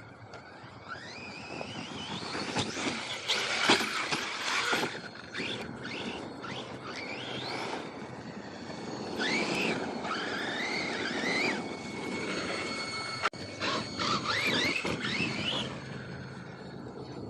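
Electric motor of a radio-controlled car whining as it revs up and down in repeated bursts, with tyres scrabbling over dirt and a few sharp knocks, one loud knock about two-thirds of the way through.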